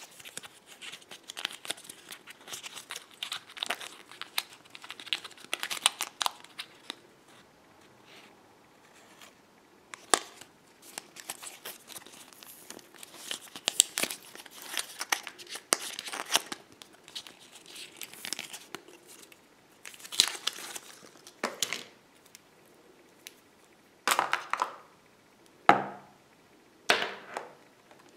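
Plastic and paper packaging of iPhone EarPods handled and pulled apart by hand: irregular crinkling and tearing rustles, with a few louder sharp clacks near the end.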